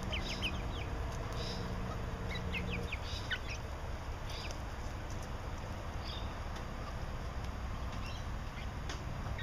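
Five-week-old chickens peeping: short, high chirps that come in quick clusters at the start and again two to three seconds in, then scattered single chirps. Under them is a low steady hum that stops about three seconds in.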